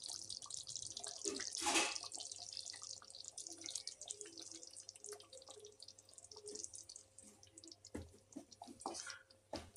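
Faint wet dripping and sloshing of thick curry gravy in a steel pan as cream is poured in and stirred with a wooden spatula, with a couple of light knocks near the end.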